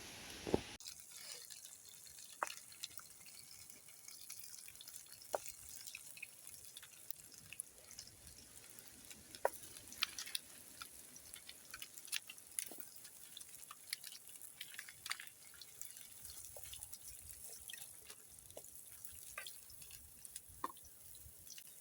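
Water dripping: single drops fall at irregular intervals, each a short faint plop, over a soft background hiss.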